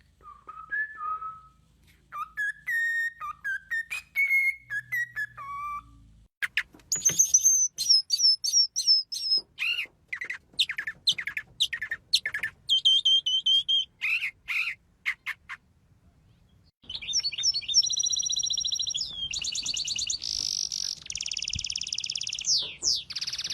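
A songbird singing a varied song: warbled whistled phrases at first, then a run of sharp chirps. After a short pause about two-thirds of the way through, a long buzzy, rattling trill.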